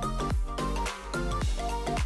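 Background music with a steady beat, about two thumps a second.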